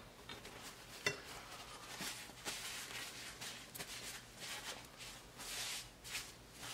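Paper towel rustling as it is rubbed over the skin of a washed crookneck squash to dry it, with a light tap about a second in.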